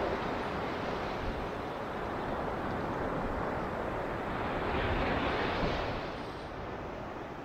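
Surf washing on a beach: a steady hiss of waves, with one wave breaking and swelling louder about five seconds in, then easing off.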